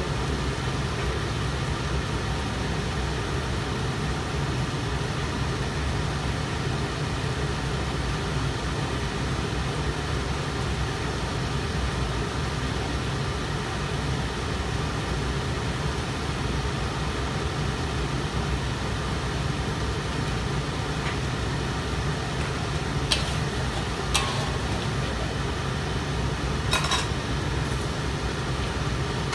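Steady hiss and low hum of a gas stove with a wok of sardine sambal simmering on it. There are a few short clinks of kitchenware near the end.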